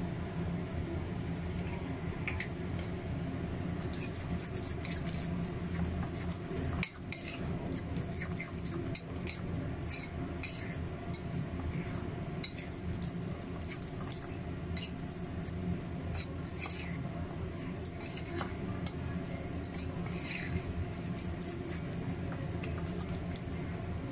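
Metal fork stirring and beating a thick corn-and-egg batter in a ceramic bowl: irregular clinks and scrapes of the fork against the bowl, with one sharper knock about seven seconds in, over a steady low hum.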